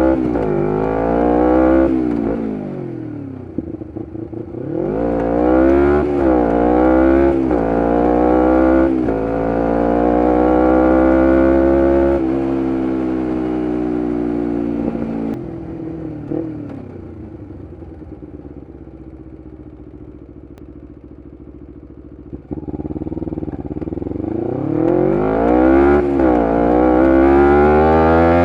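Kawasaki Ninja 250R parallel-twin engine through a full Graves race exhaust, revving up and shifting through the gears several times in quick steps, then holding a steady cruise. Near the middle it backs off to a quieter low running, then about three quarters of the way through it pulls hard again, climbing through the gears.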